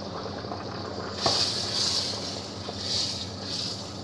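Dry rice poured from a glass into a kazan of boiling water: a click about a second in, then a hissing rush of grains in several spells over the bubbling water.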